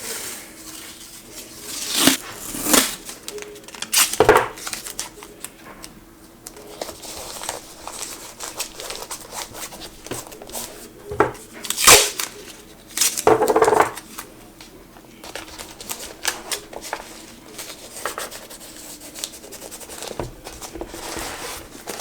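Tape being pulled off the roll and torn, with scattered rustles and taps of handling in between; a few sharp tearing bursts stand out.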